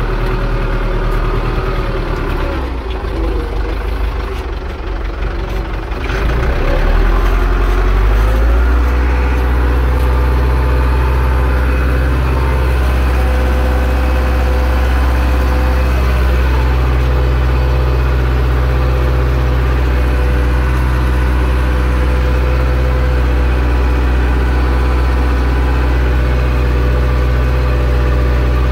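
Zetor 6245 tractor's four-cylinder diesel engine running, uneven for the first several seconds, then rising about six seconds in to a steady, heavy drone under load while plowing.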